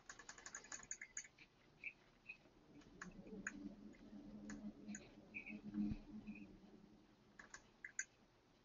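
Faint computer keyboard typing and mouse clicks: a quick run of clicks at the start, scattered single clicks, and another short cluster near the end. A faint low hum runs for a few seconds midway.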